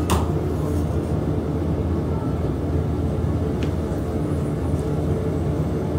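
Potter's wheel running with a steady low motor hum, with a short click at the start and another a little past halfway.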